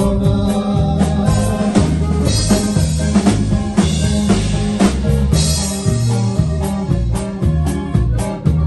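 Live norteño band playing, with the drum kit keeping a steady beat under accordion, saxophone, guitar and electric bass.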